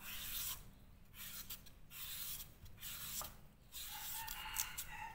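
Papaya being shredded into strips with a knife: a series of rasping scrapes, each about a second long.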